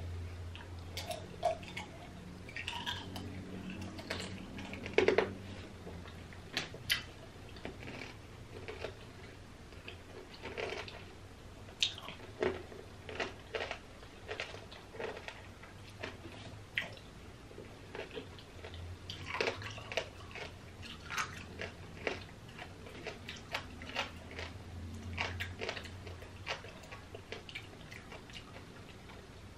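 Chewing and crunching on tanghulu, strawberries coated in hard candied sugar: irregular sharp crunches and wet mouth sounds, the loudest crunch about five seconds in.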